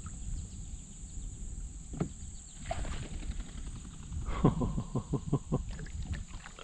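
Ducks flushing from the marsh and calling: a quick run of about eight short calls, each falling in pitch, about four and a half seconds in, with a single call earlier.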